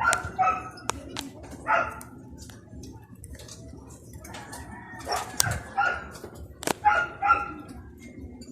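Short animal calls, mostly in pairs, repeated several times, with a few sharp clicks in between.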